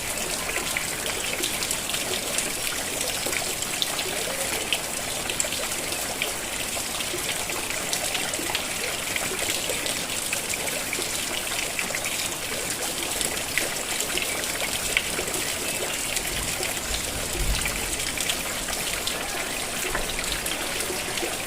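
Steady rain falling, a dense patter of drops with trickling runoff water. A brief low rumble comes in about three-quarters of the way through.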